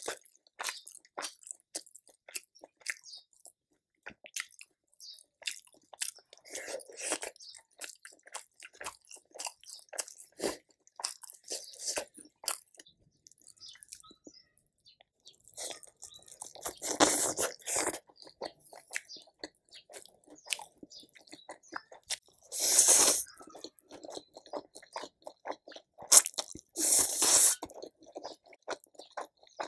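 A person eating close to the microphone, mukbang-style: a steady run of short chewing and biting clicks, with three louder, longer stretches of eating noise in the second half.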